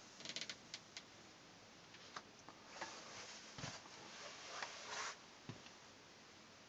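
Faint handling and movement noise from someone filming while moving around the cabin: scattered small clicks and brief rustles, with a dull thump about three and a half seconds in.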